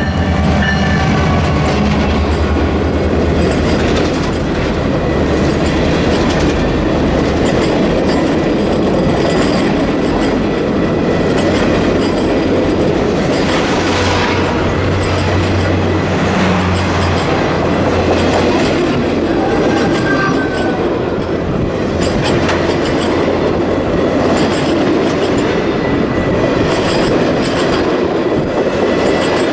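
Canadian Pacific Holiday Train passing close by: the lead diesel locomotives' engines go past in the first few seconds, then the long string of decorated freight cars rolls by with steady wheel-on-rail noise. A low engine hum comes back briefly about halfway through.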